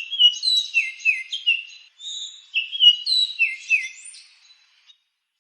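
Sparrow chirping: a run of quick, sharp, high chirps, a brief pause about two seconds in, then another run that trails off near the end.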